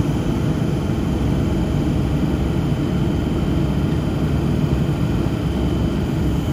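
Chopper C set double-deck electric train standing at the platform, its onboard equipment running with a steady low hum.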